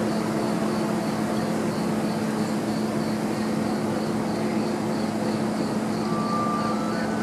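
Steady droning hum with a faint, high, cricket-like chirping repeating about three times a second. Near the end a clear tone starts and steps up in pitch.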